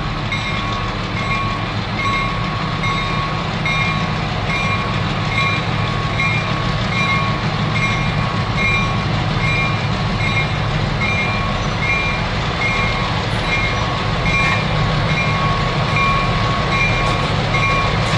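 Several MTA diesel switcher locomotives running as they slowly lead a long train, a steady low engine sound, with the locomotive bell ringing steadily, roughly twice a second.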